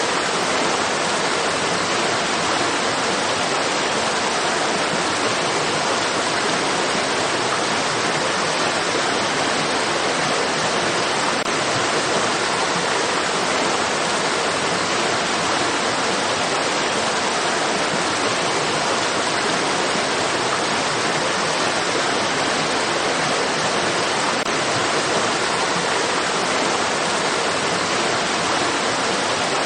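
Stream water rushing in a steady, unbroken wash with no separate splashes or changes.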